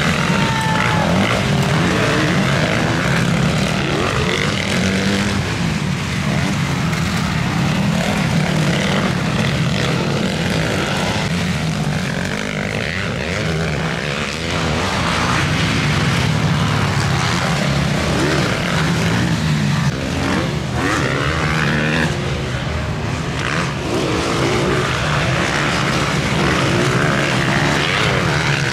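Several motocross dirt bike engines racing on a track, their pitch rising and falling over and over as the riders open and close the throttle. The engines overlap, with no pauses.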